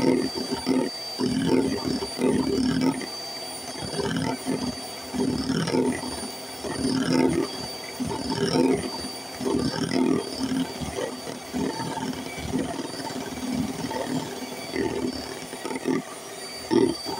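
Electric hand mixer running, its twin beaters whipping egg whites into meringue. A steady motor whine sits under an uneven churning sound that swells and dips as the beaters move through the foam.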